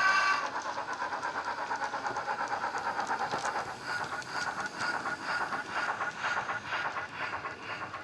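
Hornby 8F model steam locomotive's Wheeltappers DCC sound decoder playing through a small 25x25x7 mm speaker: the tail of a whistle cuts off just at the start, then an even beat of steam exhaust chuffs, about five a second, growing fainter near the end.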